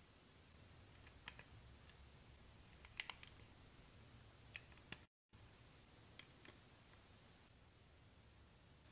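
Faint clicks and taps of Jie Star plastic building bricks being handled, in small clusters, the sharpest about three seconds in, over a low room hum.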